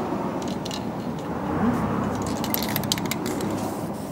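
Aerosol spray paint can rattling: short clusters of metallic clinks, about half a second in and again near three seconds.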